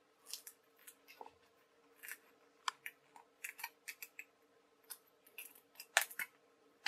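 Stiff printed card sheet being handled as a die-cut puzzle piece is pressed out of it: a run of small, irregular crackles and snaps, the sharpest near the end.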